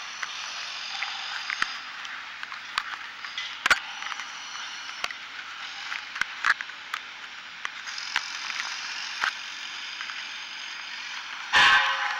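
Fingers handling a tiny FPV quadcopter's onboard camera close to its microphone: scattered clicks and rubs over a steady hiss, with a louder rustle near the end.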